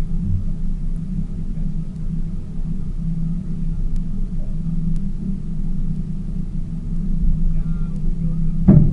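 Tour boat's engine running steadily, a low drone, with a brief loud bump near the end.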